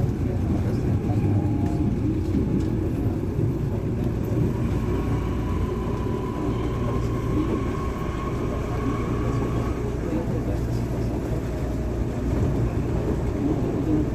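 Série C electric commuter train running, heard from inside the passenger car: a steady low rumble, with a faint whine that comes in about four seconds in and fades a few seconds later.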